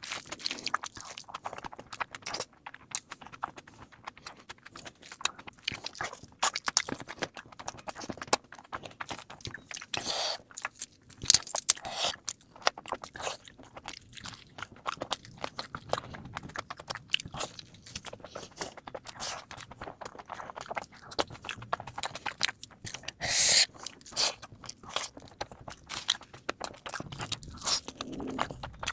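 Close-up chewing and crunching of food, a dense run of irregular crackling bites and chews, sped up to double speed, with a louder crunch about 23 seconds in.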